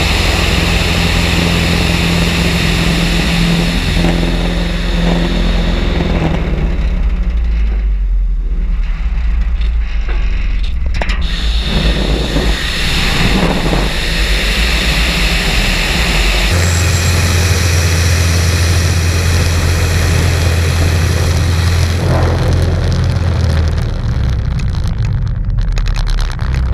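Thorp T-18's piston engine and propeller running, heard through a wing-mounted camera with air rushing over it as the airplane flies a loop attempt. The engine note changes in steps several times, about a quarter, two-thirds and five-sixths of the way through.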